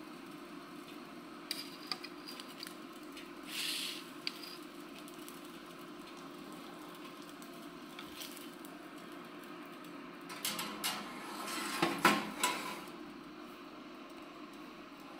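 Metal tongs and a slotted stainless-steel grill grate clinking and scraping on a wooden cutting board as a steak is slid off the grate and the grate is lifted away. There are scattered light clicks, then a louder cluster of clattering about two-thirds of the way through, over a steady low hum.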